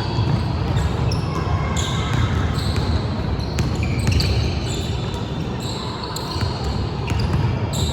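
Basketball game play on an indoor court: the ball bouncing on the hardwood floor and sneakers repeatedly squeaking in short, high chirps against a steady rumble of gym noise.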